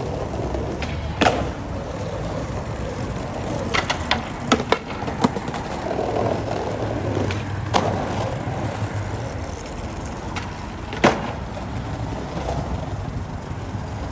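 Skateboard wheels rolling over pavement with a steady rumble, broken by sharp clacks of the board and trucks: one about a second in, a quick run of them around four to five seconds, another near eight seconds and a last one near eleven.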